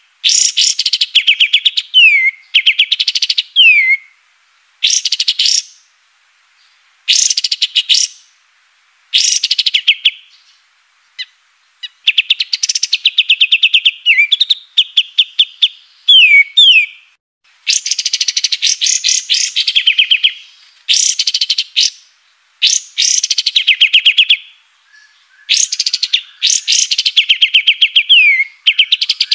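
A kapas tembak (white-shouldered triller) singing: repeated phrases of rapid, high, chattering notes, many ending in a quick falling note, with short pauses between phrases.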